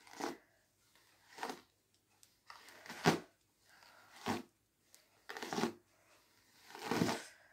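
A paddle hairbrush drawn through long hair, about six separate brush strokes a second or so apart, each a short swish. The brush is pulling through tangles.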